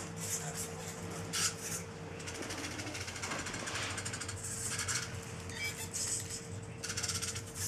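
Hobby servo motors in a quadruped robot dog's legs whirring in short repeated bursts as it steps, over a steady low hum.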